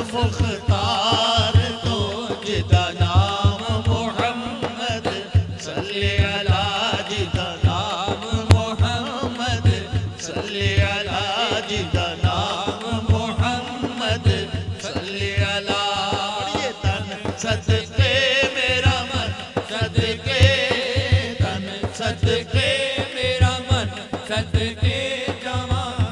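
Naat singing: voices holding a drawn-out, wavering devotional melody over a fast, steady low beat of about four pulses a second.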